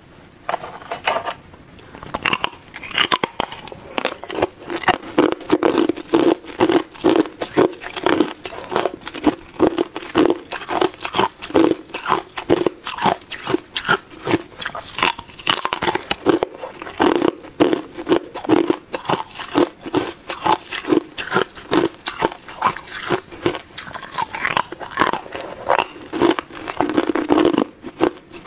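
Hard ice being bitten and chewed right at a clip-on microphone: a dense, continuous run of sharp crunches and cracks as pieces break between the teeth.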